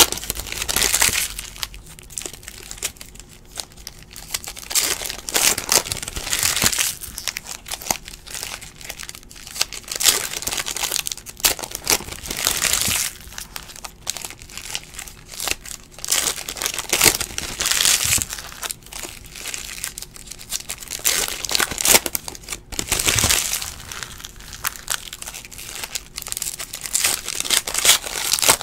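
Foil wrappers of Donruss basketball card packs crinkling and tearing as they are pulled open, in irregular bursts.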